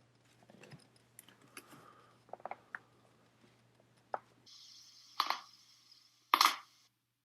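Spine joints cracking: a scatter of small clicks and pops, then two louder cracks about a second apart near the end, the last the loudest.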